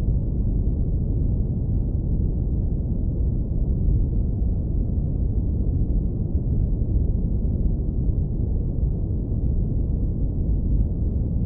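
Synthetic brown noise filtered down to a deep low rumble, steady and unchanging.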